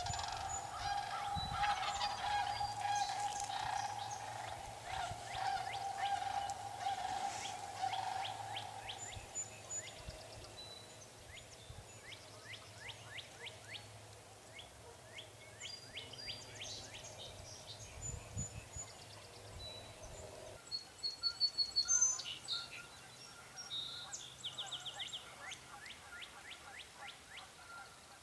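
Spring woodland birdsong: many small birds chirping and trilling, with a wild turkey calling among them. A steady mid-pitched tone runs under the first nine seconds, then fades, and a louder burst of calls comes about three quarters of the way through.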